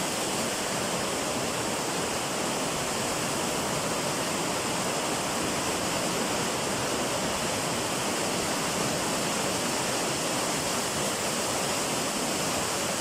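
Torrential rain pouring down in a steady, even rush with no let-up.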